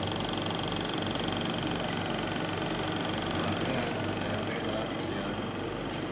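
The vacuum pump of a MELAG Vacuklav 31-B+ steam autoclave running with a steady hum during the vacuum-drying phase.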